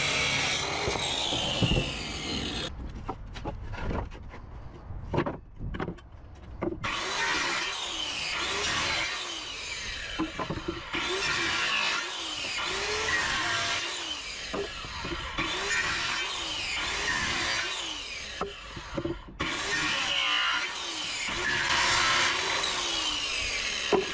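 Handheld electric circular saw cutting old wooden boards, its whine dropping and recovering as the blade loads and frees with each cut. It stops for about four seconds after the first cut, with a few knocks of boards being handled, then runs through a quick series of cuts.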